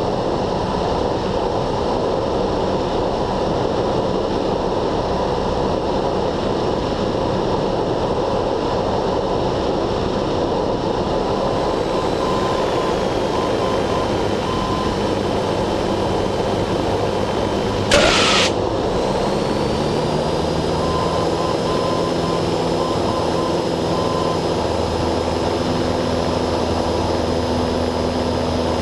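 Cessna 172N's four-cylinder Lycoming engine and propeller droning steadily in cruise under a constant rush of wind. About two-thirds of the way in there is a single short, sharp burst of noise, and the low engine note shifts slightly just after it.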